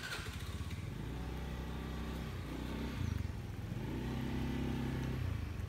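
A motor vehicle engine runs with a low, steady drone that shifts in pitch a few times and grows a little louder.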